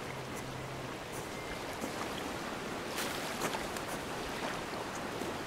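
Shallow stream running over rocks, a steady rushing, with a few light knocks around the middle.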